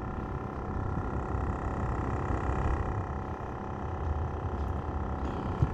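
A steady mechanical drone with a low rumble and a held hum, typical of an engine running at an even pace, with a single sharp knock near the end.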